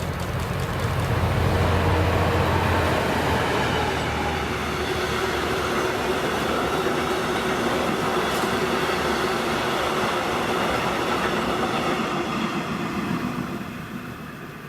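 A diesel-hauled freight train passing close by: the locomotive's engine hum is loudest in the first few seconds, then the wagons roll past on the rails with a steady rumble and clatter, fading away near the end.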